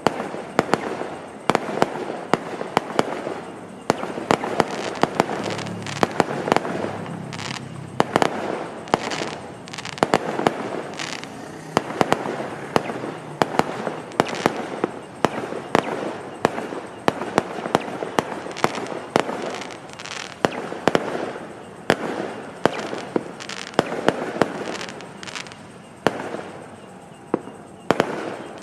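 Fireworks going off without pause: a dense run of sharp bangs, one after another, over continuous crackling.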